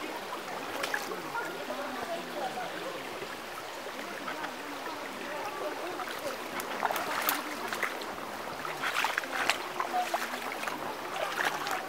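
Shallow spring-fed stream flowing over a pebble bed: a steady babble of running water, with a few short, louder gurgles about a second in, around seven and nine seconds, and near the end.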